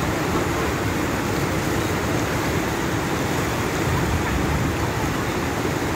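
Floodwater rushing down a street in a steady, loud roar.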